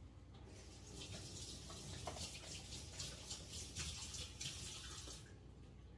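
Kitchen faucet running faintly while hands are rinsed under the stream; the water shuts off about five seconds in.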